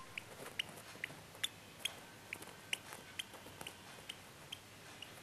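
A two-week-old lovebird chick cheeping: short high peeps repeated evenly, about two a second, typical of a hand-fed chick begging for food.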